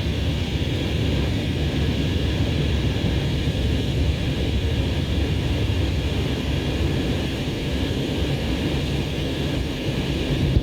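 Steady engine and airflow roar inside the cabin of an Airbus A320neo in flight, deep and unchanging.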